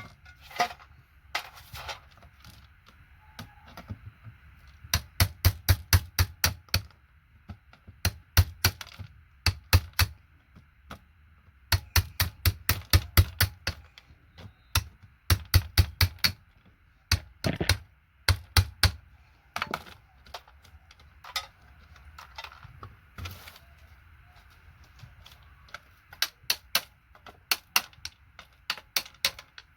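Runs of sharp clicks and snaps, several a second in bursts with short pauses between, as parts are pried and snapped off a vintage keyboard.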